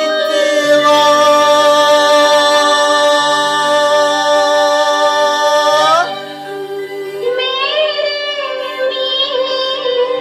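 Music from the opening of a Hindi song: one long note held for about six seconds that bends up at its end, then a softer, wavering melody over a low repeating bass note.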